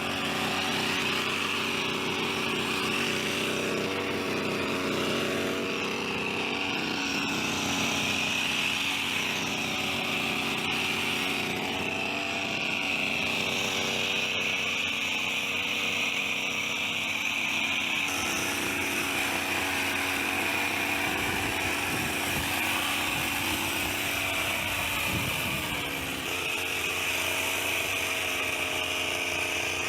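Petrol hedge trimmer's small engine running steadily at high revs, with a high buzzing whine; it dips briefly near the end.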